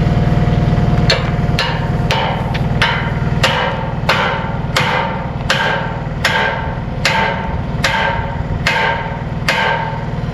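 A hammer driving a steel wedge, about fourteen ringing metal-on-metal blows in a steady rhythm, a little over one a second. An engine runs underneath.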